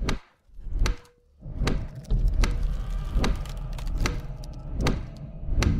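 Pendulum metronome ticking at a steady, slow beat, eight ticks a little under one a second apart, each with a deep thud beneath it. From about two seconds in, a low rumble swells underneath.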